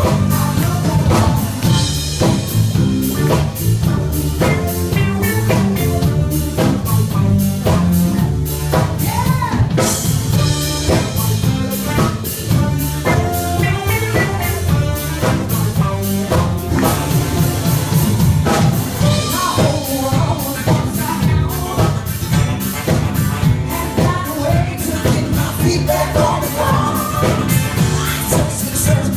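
Live R&B band playing: female singers over a drum kit keeping a steady beat, with bass and electric guitar.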